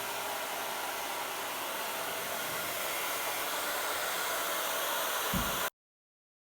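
Hair dryer blowing hot air steadily, used to soften a dried-out refrigerator door gasket so it reseals. A brief low thump just before it cuts off abruptly near the end.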